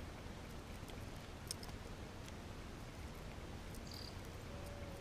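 Quiet outdoor ambience: a steady low rumble under a faint hiss, with a few soft clicks, a short high chirp near the end, and a faint thin tone starting just after it.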